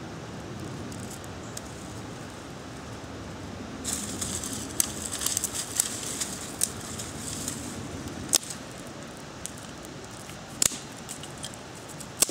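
Small fire of dry grass and twigs crackling, the crackle starting about four seconds in and thinning out, with a few sharp pops scattered through it.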